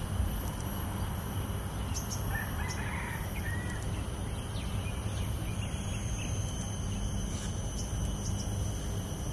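Outdoor bird and insect ambience: a steady high insect drone over a low rumble, scattered faint high bird chirps, and a short distant bird call about two to three seconds in.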